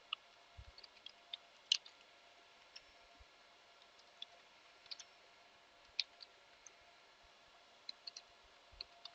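Faint, irregular clicks of a computer keyboard and mouse, scattered singly and in small clusters, over a low steady electrical hum.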